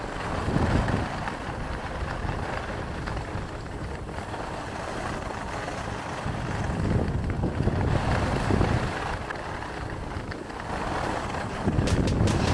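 Skis sliding over packed snow under wind buffeting the microphone, a steady rushing rumble that swells and eases several times.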